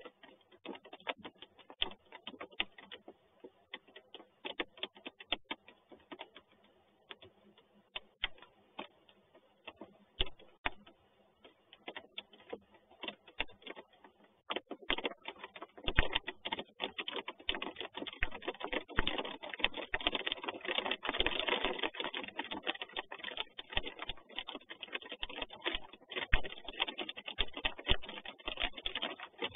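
Raindrops tapping irregularly on the nest box close to the microphone, the taps growing denser and steadier about halfway through as the rain gets heavier.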